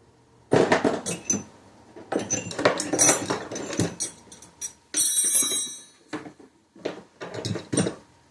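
Metal parts and tools clinking and clattering as they are handled and set down, with a bright ringing clink about five seconds in.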